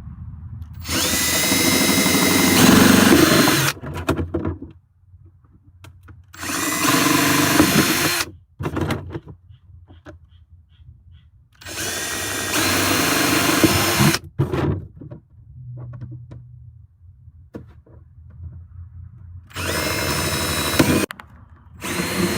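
Power drill boring holes through a plastic gallon jug in five separate bursts of a few seconds each, with pauses between. The motor whine rises as each burst starts, and the last burst begins near the end.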